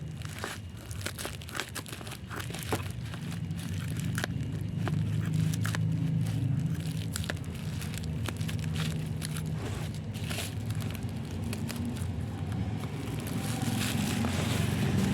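Packaging being handled during an unboxing: plastic crinkling and rustling with scattered clicks and taps, over a low steady hum that grows louder a few seconds in.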